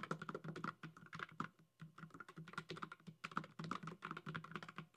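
Computer keyboard typing clicks, rapid and irregular with a couple of short pauses, a typing sound effect for title text being typed out; it stops abruptly near the end.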